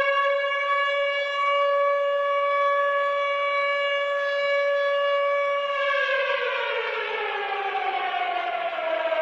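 Civil defense siren of the kind sounded as a nuclear alert: one loud tone rich in overtones, held steady for about six seconds, then falling slowly in pitch.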